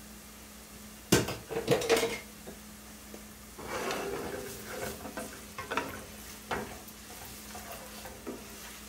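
Wooden spoon stirring ground spices into frying onions in a frying pan, scraping and knocking against the pan over a low sizzle. There are a few sharp knocks about a second in, and the stirring and sizzle pick up about halfway through.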